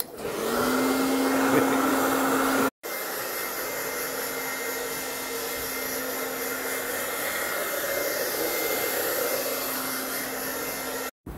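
Handheld hair dryer running steadily: a constant rush of blown air over a steady motor hum and whine. The sound drops out briefly about three seconds in and resumes a little quieter, then drops out again near the end.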